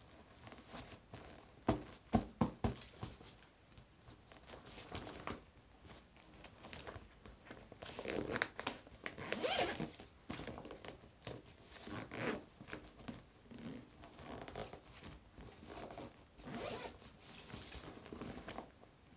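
Zipper on a black Adidas bag being pulled back and forth in several short runs, with rustling of the bag's fabric as it is handled and a few sharp clicks about two seconds in.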